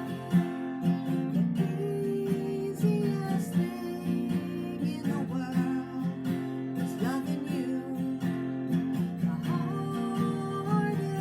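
Acoustic guitar strumming chords in a steady rhythm as song accompaniment.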